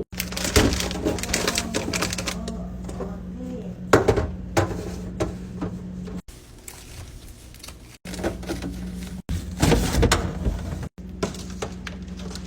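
Repeated clicks, knocks and clatter of containers and packaging being handled and set into a refrigerator, broken into several short segments by abrupt cuts, with a steady low hum under some of them.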